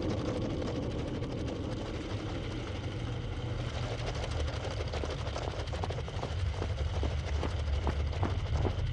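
Stylised sound effects for motor proteins walking along filaments: a steady low mechanical hum, with sharp clicks that set in about halfway at roughly two to three a second.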